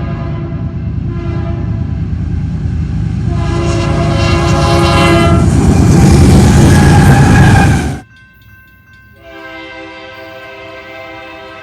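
Nathan K3LA/K3HA locomotive air horn blowing a chord in repeated blasts while the passing train's rumble grows loud. The sound cuts off abruptly about eight seconds in. About a second later another horn of the same type starts blowing a steady chord, more quietly.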